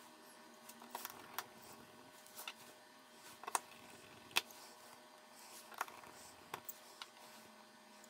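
Small, sharp, irregular clicks, roughly one a second: a precision screwdriver bit and tiny screws tapping and seating against a smartphone's metal bracket and frame as the screws are driven in.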